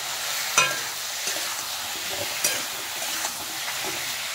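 Potatoes and ridge gourd sizzling in hot mustard oil in a kadai while a metal spatula stirs them, clicking and scraping against the pan a few times, most sharply about half a second in.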